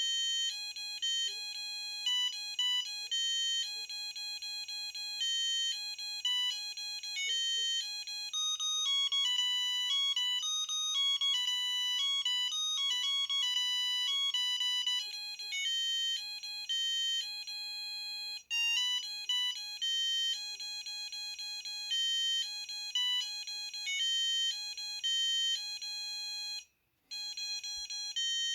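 Samsung SGH-A300 mobile phone playing an electronic ringtone melody of short beeping notes through its small speaker. It cuts out briefly about two-thirds of the way in and again near the end.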